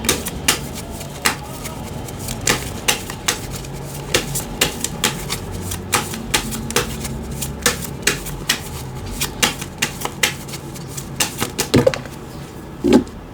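Tarot cards being shuffled by hand: a long run of irregular sharp clicks and taps, several a second, as the cards slap together.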